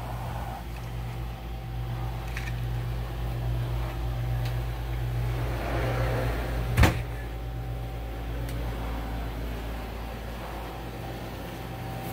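A steady low mechanical hum, with one sharp knock about seven seconds in.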